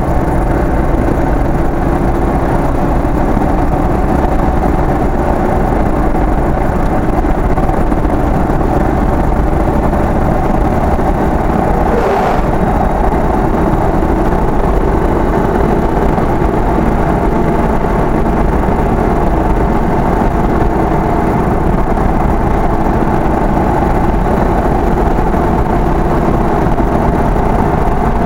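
Engine and road noise of a vehicle driving at a steady speed on a paved road, a constant drone heard from inside the vehicle.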